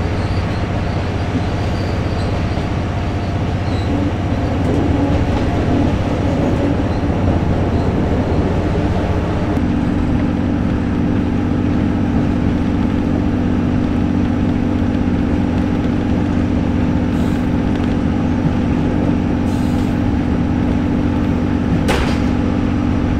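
Steady rumble of a JNR 12-series passenger train heard from aboard, with a low drone throughout and a second steady drone joining about ten seconds in. There is a single sharp click near the end.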